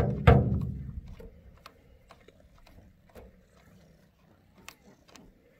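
Fuel bulb on a new Stihl MS 500i chainsaw being pumped by thumb, a faint click about twice a second, priming a dry fuel system for the saw's first start. A louder thump comes just after the start.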